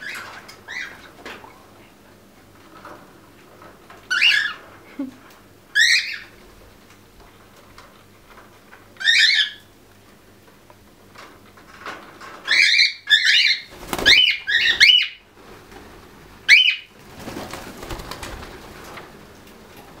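Quaker parrots (monk parakeets) giving short chirping calls, a few spaced seconds apart at first, then a quick run of them about twelve seconds in. A soft rustling of feathers follows near the end.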